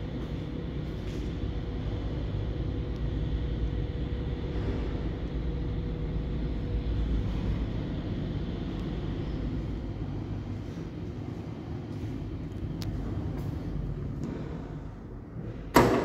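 A 1988 passenger lift car travelling in its shaft: a steady low rumble with a faint hum, easing off as it slows, then a sharp clunk near the end as it stops at the landing.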